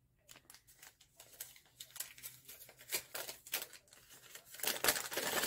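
A paper gift bag and its wrapping being opened by hand: irregular crinkling and tearing rustles, louder near the end.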